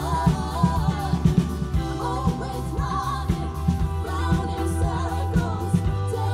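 Pop music with a steady drum beat, bass, and singing.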